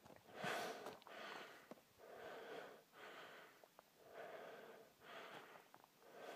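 A person breathing hard after a steep climb: faint, even breaths about one a second.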